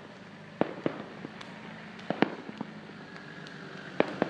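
Distant fireworks display: aerial shells bursting with a scattering of sharp, irregular bangs, the loudest about two seconds in and again near the end.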